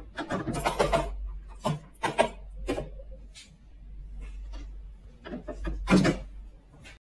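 Plastic toy horse figurines scraping and tapping on a tabletop as they are pushed into a Schleich toy horse stable, in a string of short rubs and clicks. About six seconds in, the stable's plastic double doors are swung shut with a loud clack.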